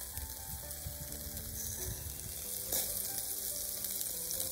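Beef ribs sizzling and crackling on a wire grill rack, with one louder pop nearly three seconds in.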